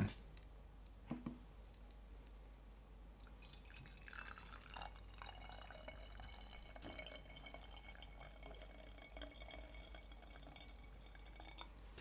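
Hot water poured from an electric kettle into the lower glass chamber of a siphon coffee maker: a faint trickle and splash of water filling the glass bulb, starting about three seconds in, after a light knock or two.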